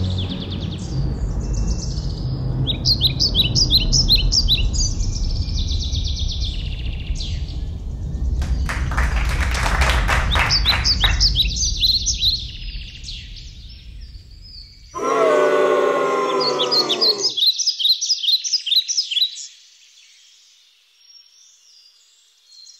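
Small birds chirping in repeated short, high trills over a low rumble. The rumble stops about two thirds of the way in, a pitched, wavering sound lasts a couple of seconds, and then only the birds are left, fainter.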